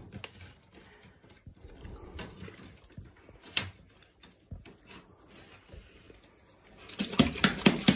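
Quiet room with a few faint clicks and taps from handling, one a little louder about midway, then a quick run of clicks in the last second.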